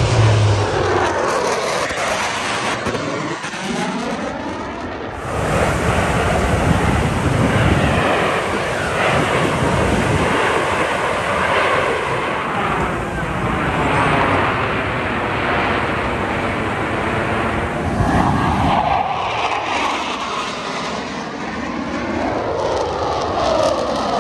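Aircraft flying past: a loud, steady rush of engine noise with repeated sweeping changes in pitch.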